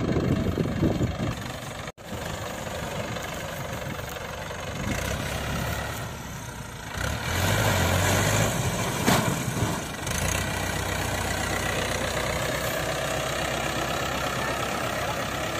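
Mahindra Turbo tractor's diesel engine running steadily under load while pulling a rear-mounted rotary tiller through the soil. It gets louder about halfway through.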